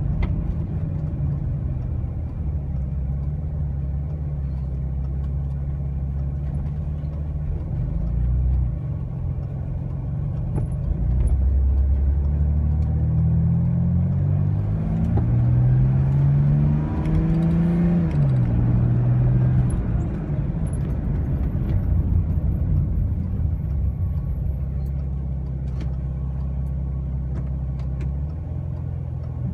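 Mercedes-Benz 300SL (R107) straight-six engine running as the car drives, heard from inside the car. About eleven seconds in the engine picks up, its pitch climbing in a couple of steps as the car accelerates, then falls back near eighteen seconds and settles to a steady cruising hum.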